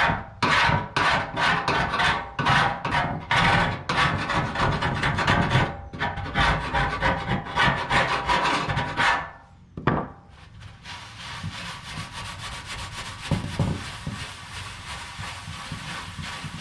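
A hand scraper drags over the bitumen underseal on a steel inner fender panel in quick repeated strokes, working the turpentine-softened coating. About ten seconds in there is a short click, and the scraping gives way to a quieter, steady rubbing as a rag is wiped over the panel.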